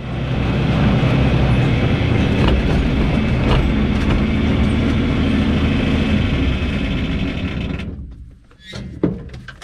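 A motor running loudly and steadily with a low rumble, dying away about eight seconds in, then a few sharp knocks.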